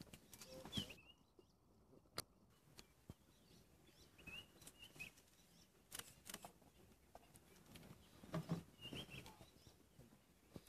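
Near silence with faint, scattered bird chirps and a few soft clicks.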